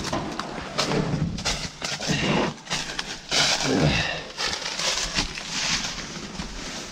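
A man breathing hard and grunting with effort while clambering, with a falling groan a little before the midpoint. Scattered scraping, crunching and clicking of debris.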